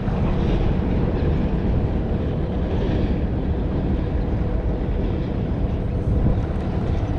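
Small boat's outboard motor running steadily while the boat is under way, a constant low drone.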